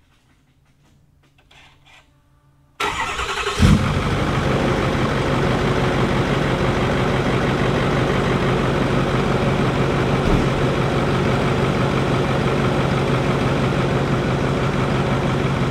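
6.4 L Powerstroke V8 turbo-diesel in a 2009 Ford F-250 Super Duty starting up. About three seconds in it cranks briefly, catches and settles into a steady idle, the start coming once its fuel system has been primed.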